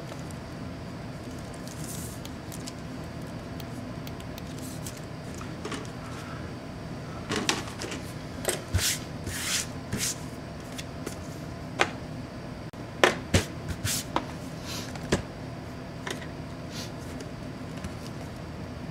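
Laptop case parts being handled and set down on a workbench: scattered plastic clicks, knocks and scrapes, busiest in the middle, with one sharper knock, over a steady low background hum.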